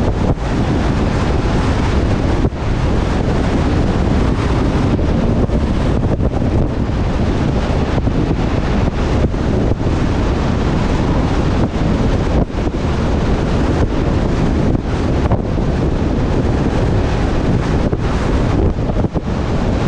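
Steady rush of wind over the microphone of a camera on a moving truck, with low road rumble beneath and brief dips where the wind buffets it.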